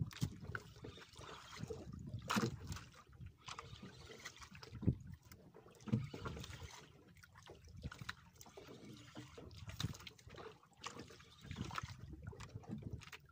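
Water sloshing against the hull of a small boat, with irregular knocks and bumps. The loudest knocks come about 2.5, 5 and 6 seconds in.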